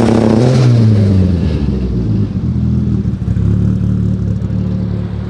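A car engine, its pitch falling over the first second and a half, then running steadily at a low note.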